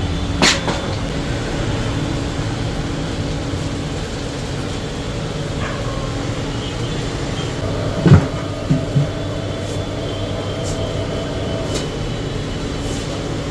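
Steady machine hum of a tyre-changing machine working a tyre off its rim, with a few sharp metal knocks, the loudest about eight seconds in.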